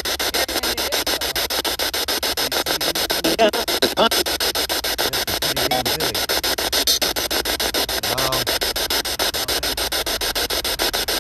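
Loud steady static hiss with a rapid even flutter through it. Brief faint voice-like fragments rise out of it a few times, and these are put forward as EVPs: a phrase heard as 'you ass' and a whisper.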